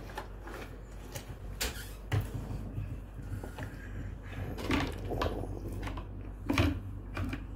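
Handling noise: scattered light clicks and knocks as small plastic toy figures and the paper poster are moved about, over a steady low hum.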